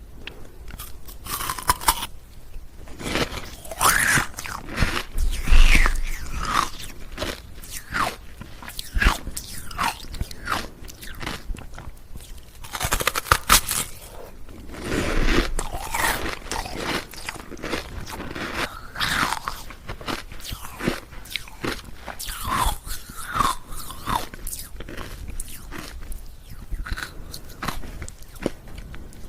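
Ice cubes being bitten and chewed, a fast irregular run of sharp cracks and crunches.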